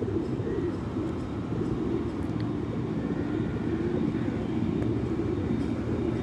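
A flock of feral rock pigeons cooing together, a low, continuous wavering murmur without pauses.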